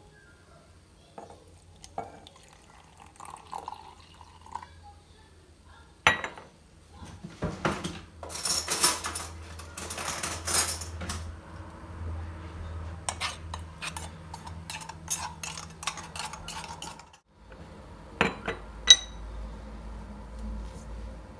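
Crockery being handled: a porcelain cup and saucer and a stainless steel pot knocking and clinking on a stone countertop, in scattered clicks with a busier stretch in the middle and one bright ringing porcelain clink near the end.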